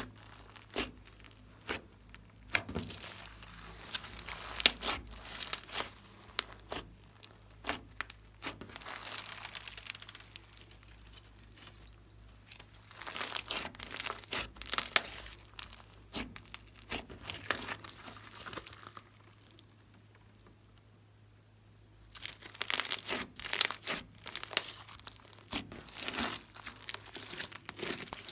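Hands squeezing, kneading and stretching glossy slime: sticky crackling and popping clicks in busy clusters, dropping away for a few seconds past the middle before picking up again.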